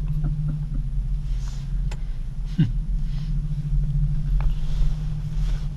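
Steady low hum and rumble of a gondola lift cabin riding along its cable, with a few faint clicks.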